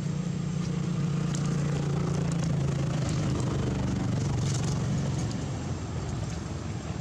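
Steady low hum of an engine idling, with a few faint short clicks over it.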